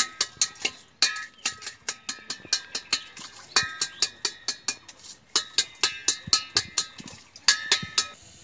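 Boiled eggs knocked against the inside of a stainless steel bowl to crack their shells, in quick runs of sharp taps with short pauses. Each tap leaves the bowl ringing.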